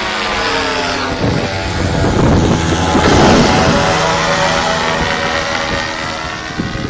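Paramotor trike's Simonini 200 cc two-stroke engine and propeller droning as the trike flies overhead. The sound grows louder and rougher between about one and four seconds in, then turns steady again.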